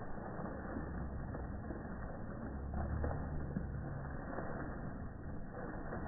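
Fountain jet splashing steadily into its pool, with a low hum that swells in the middle and fades again.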